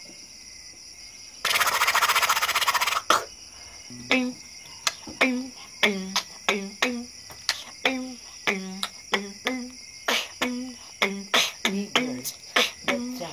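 Human beatboxing: after a loud, harsh sustained burst lasting about a second and a half, a steady beat of short punchy mouth-made drum sounds, each with a low hum, about two to three strikes a second. Crickets chirp steadily behind it.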